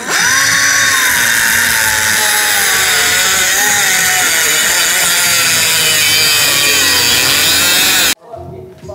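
Angle grinder with a cutting disc cutting through metal on a car's underside. It runs hard and steady, its motor whine slowly falling in pitch under load, then cuts off suddenly near the end.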